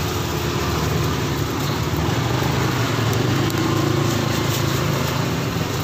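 Steady street traffic noise with engines running, a continuous low rumble and no single event standing out.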